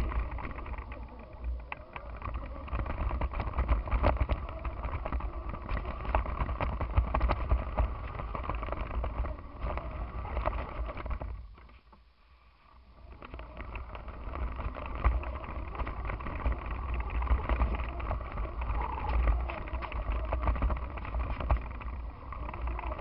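Electric go-kart driving hard over a grassy backyard, heard from a camera mounted on the kart: a heavy low rumble with constant rattles and knocks as the chassis jolts over the ground. The noise falls away almost to silence for about a second near the middle, then picks up again.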